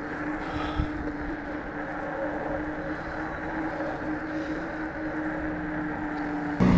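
Nireeka Revenant e-bike's 1000 W electric motor whining at a steady pitch while cruising, with wind rumbling on the microphone and road noise. Near the end the sound jumps abruptly louder.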